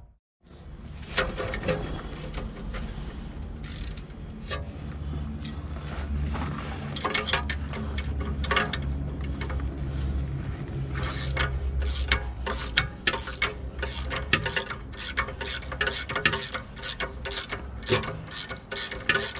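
A 19 mm ratchet spanner clicking as a nut is turned at the rear hub carrier. The clicks are scattered at first, then come in a quick regular run of about two or three a second from about halfway through.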